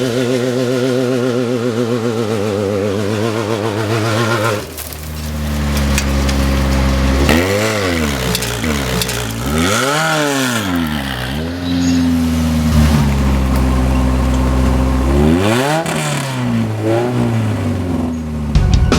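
Off-road race vehicle engines running hard, the revs rising and falling sharply several times. About four and a half seconds in, the sound switches abruptly from a wavering engine note to a lower, steadier one.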